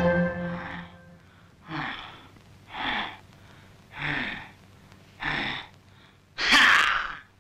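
A cartoon tiger's voiced breathing: four short breathy huffs about a second apart, then a louder, longer huff near the end.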